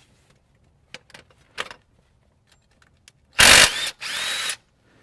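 Cordless impact wrench running in one short burst of about a second on the E18 crankshaft pulley bolt of a GM 1.4L Ecotec, loudest at the start and then lighter, with a rising whine: the pre-loosened bolt being run out. A couple of faint clicks come before it.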